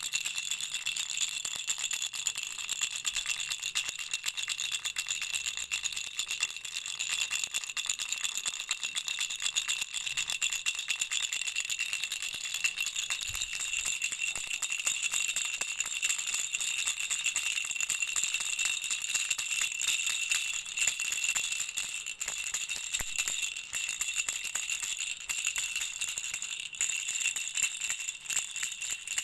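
Baby rattle shaken continuously, a dense, rapid jingling with a steady bell-like ring.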